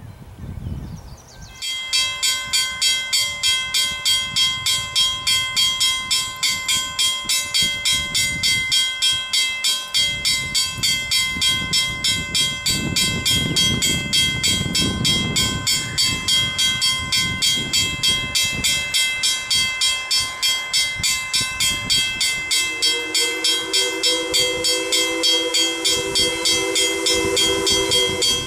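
A bell ringing rapidly and evenly, about three to four strokes a second, begins about two seconds in. Near the end, the chime steam whistle of ALCo 2-8-2 Mikado #40 joins it, several notes at once.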